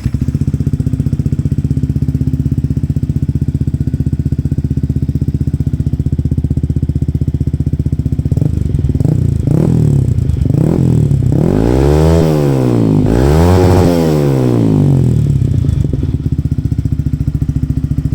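Yamaha XSR 155 single-cylinder engine breathing through an R9 Retro Series aftermarket muffler. It idles steadily, gets a few quick throttle blips, then two longer, higher revs, and settles back to idle.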